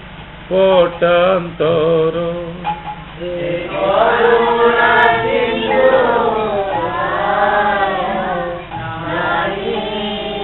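A group of voices singing an Odia devotional song (bhajan) together. A single voice holds sung notes first, and many voices join in about three and a half seconds in.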